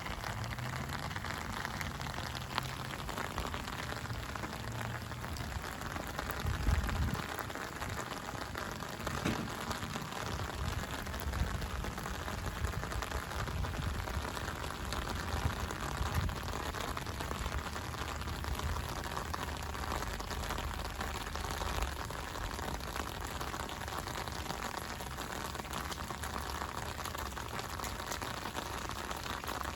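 Steady rain falling and pattering on surfaces, with irregular low thumps, the loudest about seven seconds in.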